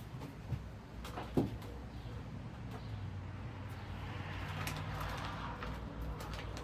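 Hands working on ceiling fan blades and blade irons: scattered small clicks and knocks, one sharper knock about a second and a half in, and rustling handling noise later on.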